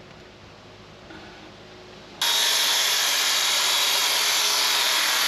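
Faint clicks over a low hum, then about two seconds in a cordless circular saw starts suddenly, loud and steady as it cuts through a sheet of plywood.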